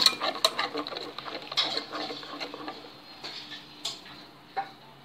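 Balloon whisk stirring pastry cream in a saucepan: quick ticking and scraping of the wires against the pan, thinning out after about three seconds, with a few sharper taps.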